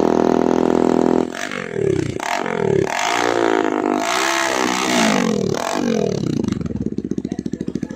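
Motorcycle engine through a KAL-KAL aftermarket muffler, held at high revs for about a second and then revved up and down several times, settling near the end into a fast, regular putting idle.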